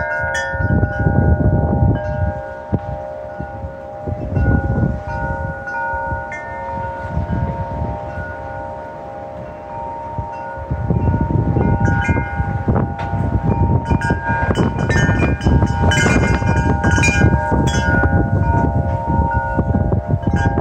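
Wind chimes ringing in gusty wind, their held tones struck again and again, with wind rumbling on the microphone. The gusts pick up about halfway through, setting off a busy flurry of strikes.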